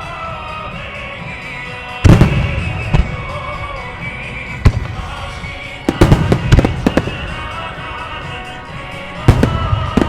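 Fireworks shells bursting with sharp bangs over music played through loudspeakers: single bangs about two, three and five seconds in, a quick cluster of several around six to seven seconds, and another cluster near the end.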